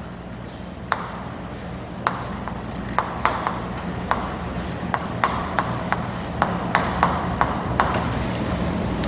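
Irregular light taps and clicks of writing on a board, coming more often in the second half, over a steady low electrical hum and a hiss that slowly grows louder.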